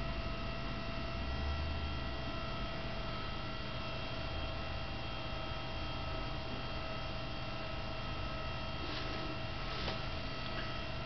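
Steady electrical hum with several steady high tones over it, unchanging throughout.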